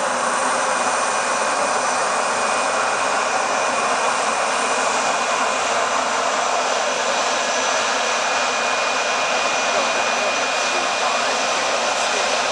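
Airbus A320-214's CFM56 turbofan engines at takeoff power as the airliner rolls down the runway: a steady, loud roar with a thin high whine running through it.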